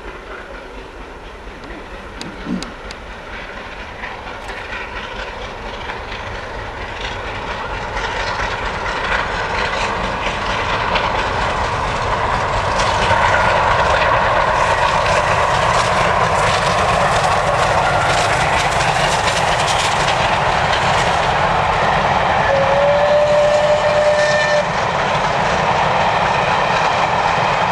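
Bulleid Battle of Britain class three-cylinder steam locomotive 34067 'Tangmere' approaching and passing with a train of coaches, growing steadily louder over the first half, then the coaches clattering past over the rail joints. A brief steady high tone sounds for about two seconds near the end.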